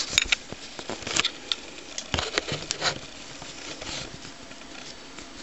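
Handling noise from a camera being carried and set on a tripod: a quick run of clicks, knocks and rustles over the first three seconds, then quieter.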